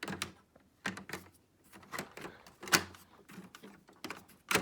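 Irregular clicks and knocks of hard plastic parts on a Hoover Elite upright vacuum being handled, with a sharper knock about two-thirds of the way through and another near the end.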